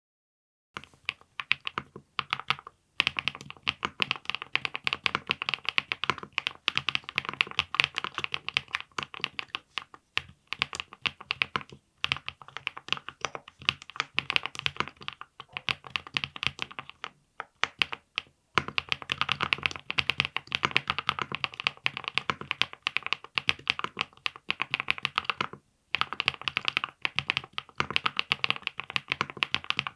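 Continuous fast typing on a VXE75 mechanical keyboard with Ania axis switches, PC plate and full foam: a dense stream of keystrokes that starts about a second in, with a few brief pauses.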